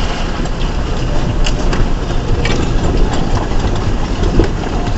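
2004 Ford Ranger's 4.0 L V6 engine running steadily, with a few light knocks about one and a half to two and a half seconds in.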